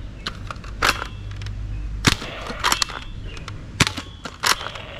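Toy foam-dart revolver blaster firing several times in succession: about five sharp snaps spaced roughly a half-second to a second apart, with lighter clicks of the blaster being primed between shots.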